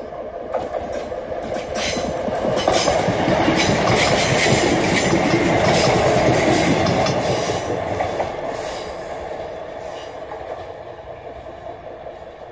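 Class 156 diesel multiple unit passing close by. The diesel drone and rhythmic clicking of wheels over the rail grow to a peak about halfway through, then fade as the train moves away.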